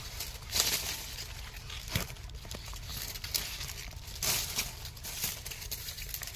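Intermittent crinkly rustling of dry leaves and crop stalks, with one sharp click about two seconds in.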